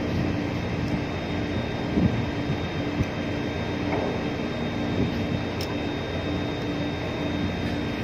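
Steady drone of ship's engines and machinery, with a regular pulsing hum and a few faint knocks.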